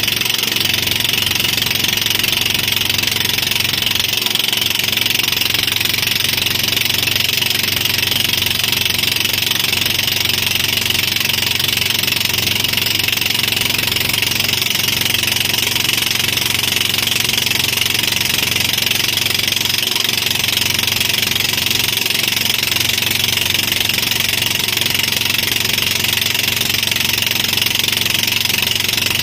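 A motorboat's engine running steadily at speed while towing, mixed with the rush of water from the wake.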